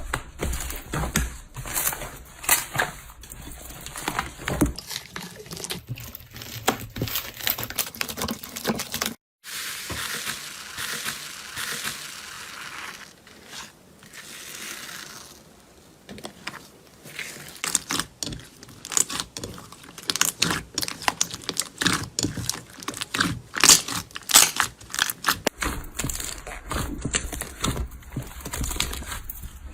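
Slime being squeezed, stretched and poked by hand, making rapid sticky crackles and pops. A brief break about nine seconds in leads to a few seconds of softer hissing, then the crackling returns, busier near the end.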